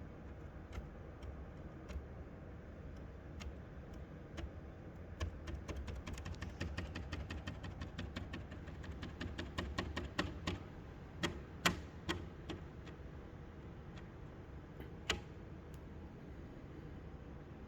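Light clicks and taps from handling a warped 3D print on its magnetic build plate. A quick run of small clicks starts about five seconds in and lasts several seconds. A few louder single clicks follow.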